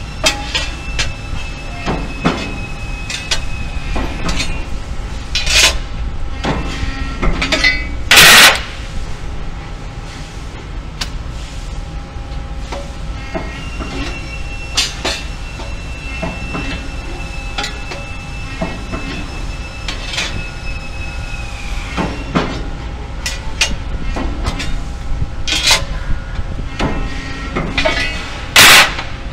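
Press brake bending sheet-metal parts, over a steady low machine rumble: frequent clanks and clicks of metal being handled and pressed, a thin high tone during two stretches, and two short, very loud bursts of noise, about eight seconds in and near the end.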